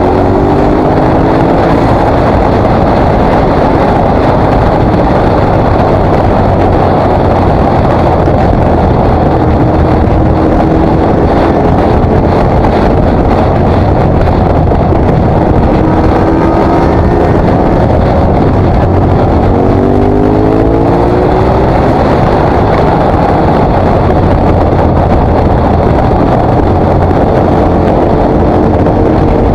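KTM 950 SMR's V-twin engine running at road speed with heavy wind noise on the microphone. The engine rises in pitch as it accelerates, near the start and again about two-thirds of the way in.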